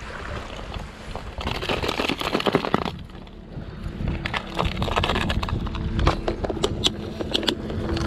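Wind buffeting the microphone, with a stretch of rough crunching on a shelly shore about a second and a half in, then a run of sharp plastic clicks and knocks as a clear plastic tackle box of lures is opened, handled and closed.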